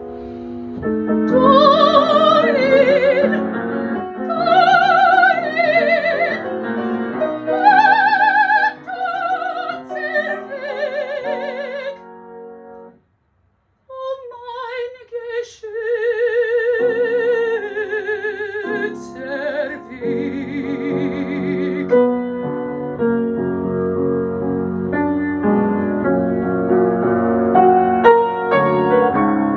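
Soprano singing a German art song with strong vibrato over piano accompaniment. The music breaks off suddenly for about a second, the voice comes back, and then the piano plays on alone for the last third.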